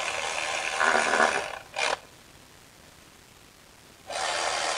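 Cordless ratchet (Milwaukee M12) whirring as it runs in water-pump bolts. It runs for about a second and a half with a short blip just after, then runs again from about four seconds in.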